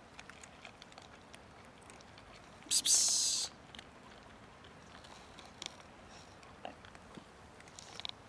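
Cats eating dry kibble from a tray: scattered small crunching clicks of chewing. About three seconds in, a loud, short rush of hissing noise lasts under a second.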